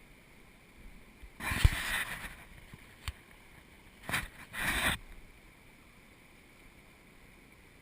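A hooked fish splashing at the water's surface beside the boat as it is brought in: three short bursts of splashing, with a sharp knock between them about three seconds in.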